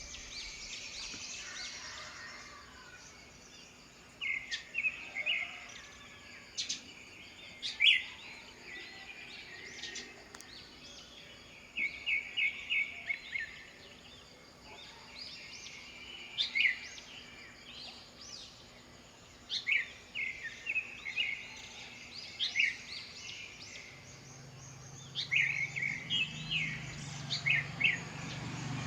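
Wild songbirds chirping, in short clusters of quick high notes every few seconds over faint background noise. A low hum comes in near the end and grows louder.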